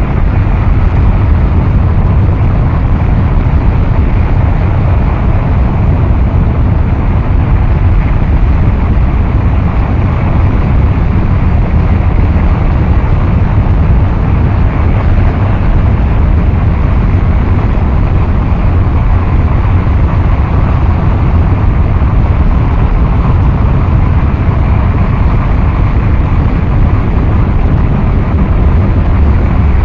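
Noise music: a loud, dense, unchanging rumble, heaviest in the bass, with a faint steady tone running through it and no beat, melody or voice.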